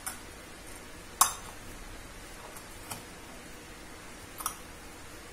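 Steel spoon mixing a chickpea salad in a bowl, clinking against the bowl's rim and sides a few times, the loudest clink about a second in.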